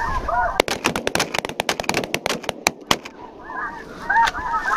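A rapid volley of many shotgun shots over about two seconds, starting about half a second in, fired at a passing flock of snow geese. The geese are honking before the volley and again near the end.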